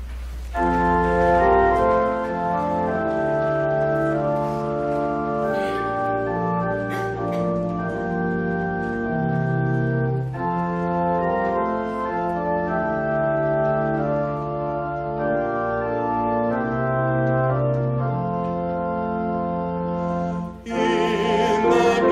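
Church organ playing the introduction to a congregational hymn in held, changing chords. Near the end it breaks off for a moment and the congregation starts singing with the organ.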